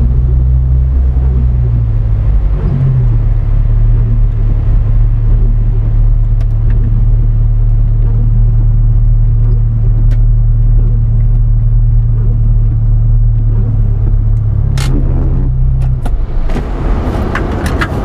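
Car engine and road noise from inside the cabin while driving on a wet road, a loud steady low drone. The engine note shifts about two to three seconds in and drops away about two seconds before the end as the car slows, with a few clicks and rustling near the end.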